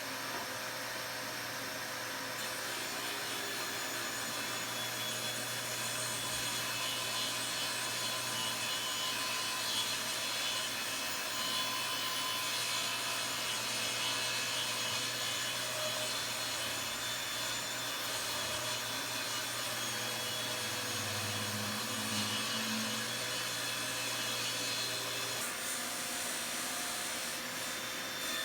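Power saw running steadily while cutting wood: a constant motor drone with the hiss of the cut, unbroken throughout.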